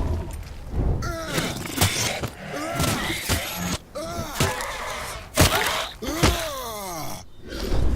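A quick run of short, voice-like cries and groans, each bending up and then down in pitch, broken by sharp clicks and brief gaps.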